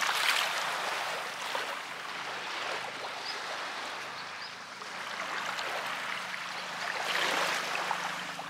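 Small waves lapping on a sandy beach: a steady wash of water that swells near the start and again near the end.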